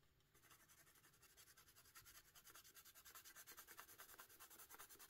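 Colored pencil shading on coloring-book paper: quick, even back-and-forth strokes, about ten a second, faint and getting a little louder.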